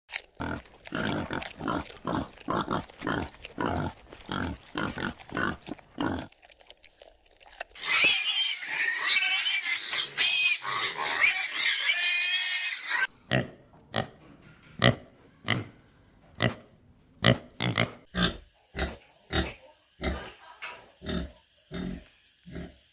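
Pig grunting in a quick, even series of about three grunts a second, then a few seconds of high-pitched, wavering squealing, then slower, irregular grunts.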